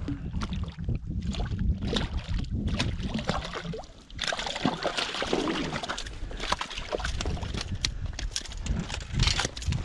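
A hooked fish splashing and thrashing in shallow water against a rocky bank as it is landed, with water sloshing and many sharp clicks and knocks. A low rumble sits under it all.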